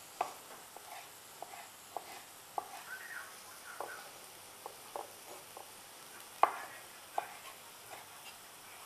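Kitchen knife dicing a tomato on a wooden cutting board: irregular single taps of the blade on the board, about one every half second to second, the loudest about six and a half seconds in.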